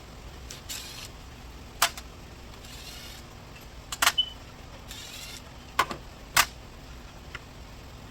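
Sharp clicks and knocks of hand tools on car parts, several separate strikes with a close pair near the middle, between short scraping or rustling stretches.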